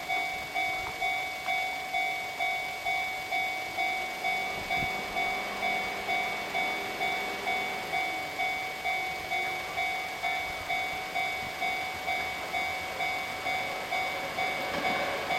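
Japanese level-crossing alarm ringing its electronic 'kan-kan' bell, an even clang about twice a second, warning of an approaching train. Near the end the noise of the approaching train begins to build under the bell.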